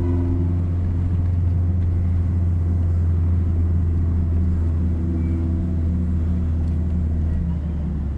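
BMW E36 318ti four-cylinder engine running at a steady speed, a low, even hum that holds its pitch throughout: the noise the owner is showing.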